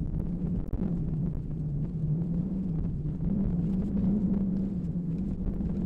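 A low humming drone that steps back and forth between two close pitches about once a second, over a steady low rumble.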